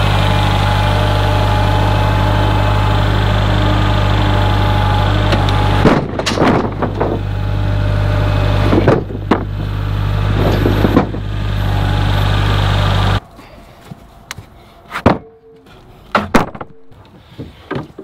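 Kubota compact tractor's diesel engine running steadily while its loader grapple carries a stack of lumber, with knocks and clatter from about six to eleven seconds in. The engine sound cuts off suddenly about thirteen seconds in, leaving scattered knocks of boards being handled.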